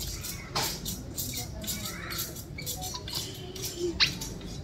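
Mini trampoline being bounced on: repeated irregular rattling knocks from its frame and springs, with a sharp knock about four seconds in as it is stepped off.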